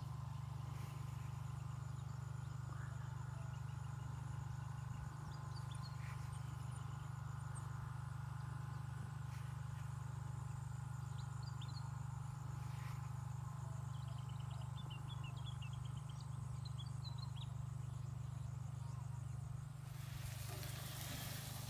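Bush ambience: birds chirping here and there and a steady insect drone over a constant low hum. A louder hiss comes in near the end.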